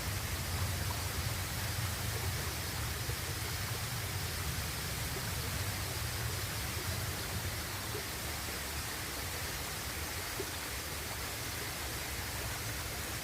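Waterfall pouring into its pool: a steady rush of falling water with a deep low rumble underneath.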